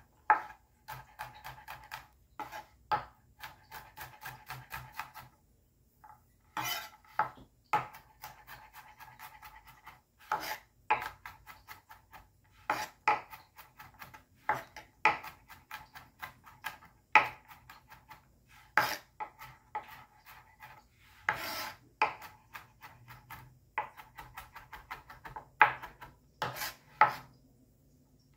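Chef's knife chopping garlic on a plastic cutting board: runs of quick light knocks of the blade against the board, broken by louder single chops and a brief pause.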